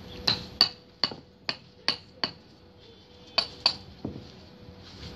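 Hand hammer striking interlocking bricks to seat them on the wall: six sharp knocks about every half second, then after a pause three more.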